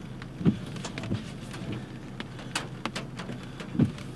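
Large hailstones striking the vehicle: scattered sharp ticks and knocks, with two louder thuds about half a second in and near the end, over the steady hum of the running engine.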